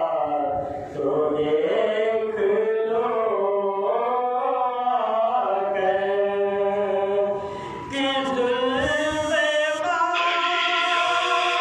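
A man's solo voice chanting a slow devotional melody through a microphone and loudspeaker, with long held notes and short breaths about a second in and near eight seconds in.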